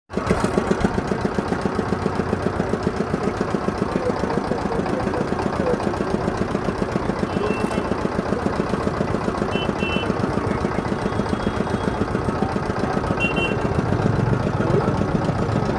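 An engine idling steadily with a rapid, even pulse.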